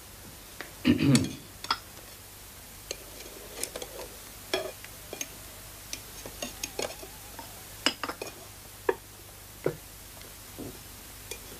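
Cutlery clinking and scraping against plates during a meal: scattered sharp clicks at irregular intervals.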